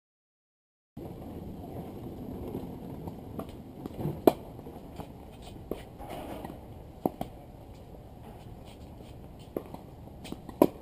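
Tennis ball being struck back and forth with rackets on an outdoor hard court: sharp pocks a few seconds apart over steady background noise, the loudest about four seconds in. The sound comes in about a second in, after silence.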